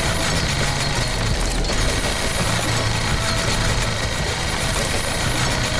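Tractor engine running steadily with a low, even hum.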